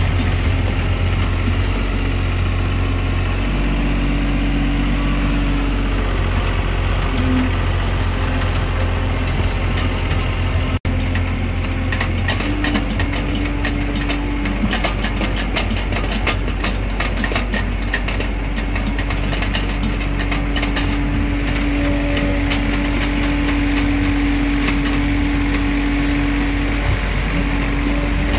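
IHI IS-30GX mini excavator's diesel engine running steadily while the machine digs, heard from the operator's seat. A hum from the machine shifts in pitch and comes and goes as the controls are worked, with clattering through the second half.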